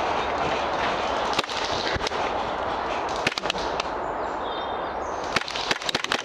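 Airsoft guns firing: a few separate sharp cracks, then a quick run of cracks starting about a second before the end, over a steady noisy background.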